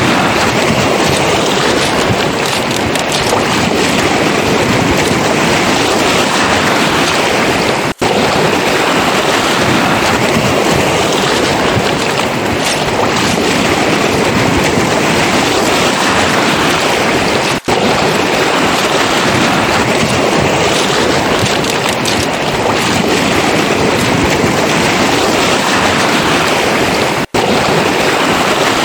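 Surf washing on a pebble beach: a loud, steady rushing noise with wind buffeting the microphone. The sound cuts out for an instant three times, about every ten seconds.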